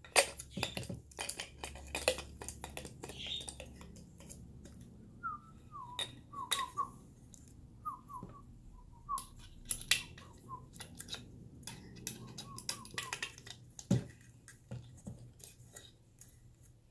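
Clicks and taps of a plastic spool of braided fishing line and a metal spooler rod being handled and fitted together on a table, with a run of short, faint squeaky chirps in the middle.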